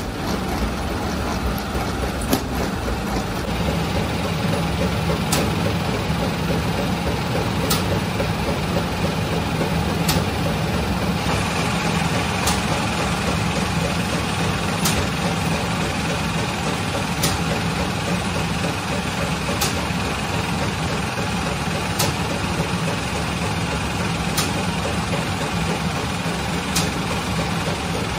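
Conveyor bread oven's machinery running with a steady mechanical hum, and a sharp click repeating about every two and a half seconds.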